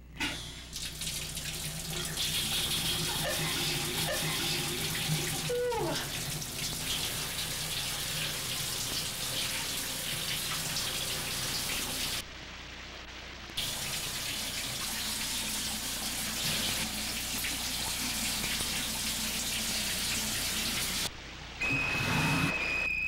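Shower running, water spraying steadily; the spray cuts out for about a second partway through and again briefly near the end. A steady high tone starts just before the end.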